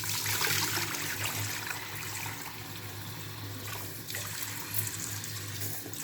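Water running from a kitchen tap, strongest in the first second and then running steadily.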